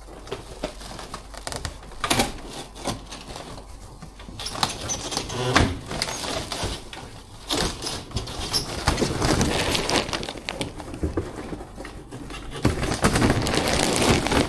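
Irregular rustling and crinkling with light knocks, coming in several stretches, as goods, likely plastic-wrapped bottled water, are handled and moved on a shop shelf.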